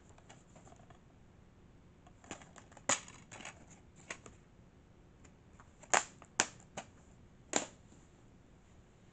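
Black plastic DVD case being handled, opened and snapped shut: a series of sharp plastic clicks and snaps, a few about two to four seconds in and the loudest cluster about six to seven and a half seconds in.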